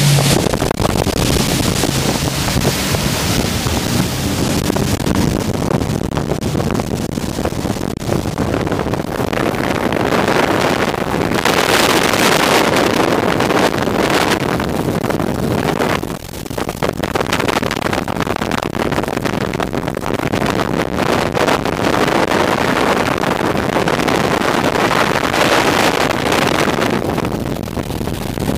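Wind buffeting the microphone and the rush of water and spray from a fast-running motorboat's wake, an even, dense noise that surges now and then and dips briefly about two-thirds of the way through.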